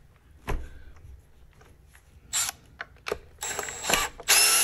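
A few scattered clicks and short rattles of handling, then a cordless power driver starts near the end and runs with a steady whine, backing out a screw.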